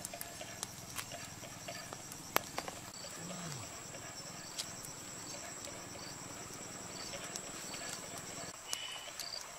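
Steady high-pitched insect drone with a faint chirp repeating about once a second, broken by scattered sharp clicks, the loudest about two and a half seconds in. A brief low hum from a person comes about three seconds in.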